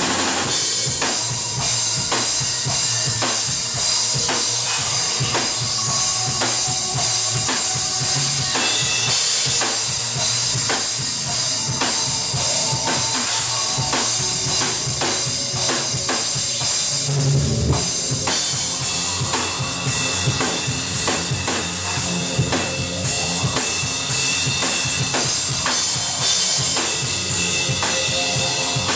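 Live rock band playing: a drum kit pounding a dense, fast beat of bass drum and snare under electric guitar and keyboard. A heavy low swell comes in a little past the middle.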